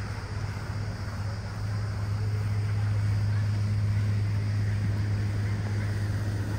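Tour boat's engine running steadily under way, a low drone that gets louder about a second and a half in.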